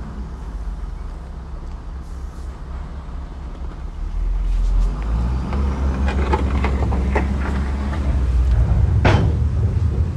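Diesel engine of heavy earthmoving machinery running with a steady low drone that grows louder about four seconds in, with a cluster of knocks and clatter a little past the middle and one sharp bang near the end.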